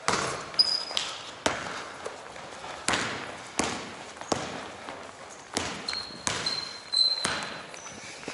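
Basketball bouncing on a gym floor in an irregular string of sharp thuds that echo in the hall, with a few short, high sneaker squeaks, the longest a little before the end.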